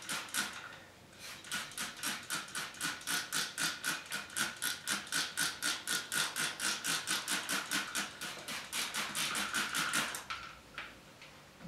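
Hand trigger spray bottle pumped rapidly, about four squirts a second, misting plain rinse water onto a plate. There is a short break about a second in, and the spraying stops about ten seconds in.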